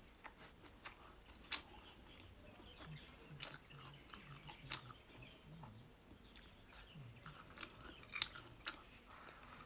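Close-up mouth sounds of someone chewing boneless chicken feet, with sharp crunchy clicks every second or so, the loudest about eight seconds in.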